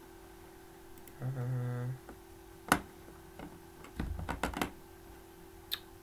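Computer mouse and keyboard clicks: one sharp click near the middle, a quick cluster of clicks about four seconds in, and a last click near the end, over a faint steady hum.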